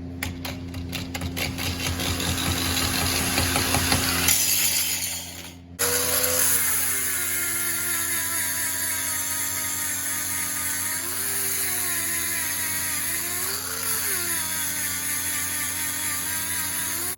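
Angle grinder grinding steel: the grinding stops briefly about five seconds in, then the grinder runs on with a wavering pitch and cuts off suddenly at the end. It is the grinder the owner says he has cooked, burnt out by the job.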